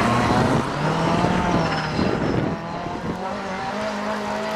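Rally car engine running hard on a gravel stage, its note shifting in pitch a couple of times, over the noise of loose gravel and tyres.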